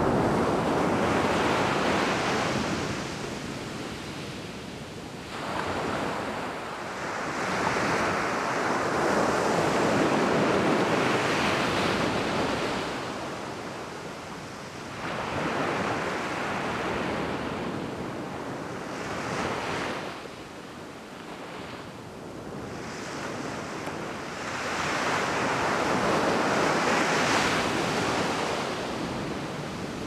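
Small sea waves breaking and washing up a sandy beach, the surf swelling and ebbing in slow surges every few seconds.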